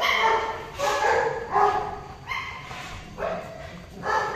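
Golden retriever crying out as it is held for mating, about five short, pitched cries in quick succession, each under a second.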